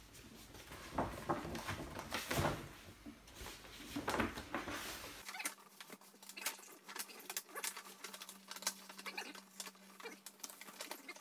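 A paper gift bag rustling and crinkling as it is handled and opened, in quick irregular crackles.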